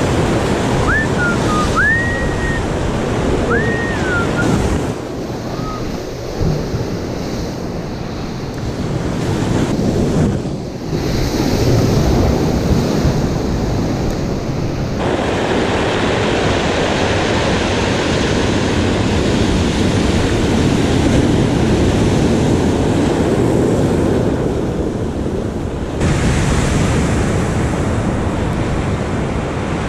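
Ocean surf breaking and washing over shoreline rocks, with wind buffeting the microphone. A few short high chirps sound in the first few seconds, and the surf sound shifts abruptly several times.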